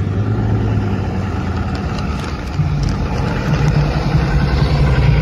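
Heavy-duty Ram dually pickup's engine running at low revs, a steady low hum whose pitch steps up about halfway through.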